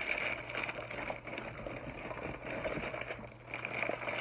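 Clear plastic packaging crinkling and rustling irregularly as packaged craft kits are handled and shuffled, over a faint low steady hum.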